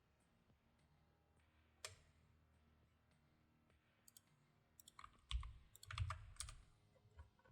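Faint clicks of a computer keyboard and mouse: a single click about two seconds in, then a quick run of key taps with soft thumps from about five seconds on, over near silence.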